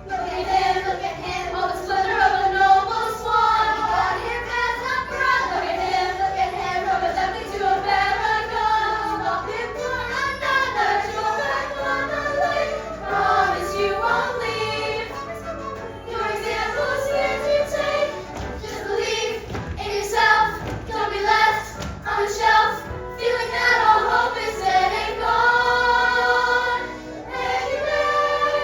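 A song: voices singing together over musical accompaniment.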